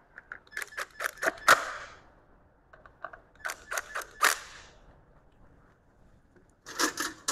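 Cordless impact driver hammering the harmonic balancer (crank pulley) bolts snug on a Mazda B2200 2.2L engine. It goes in three short bursts of rapid clicking hits: the first about a second in, the second near four seconds in and the last near the end.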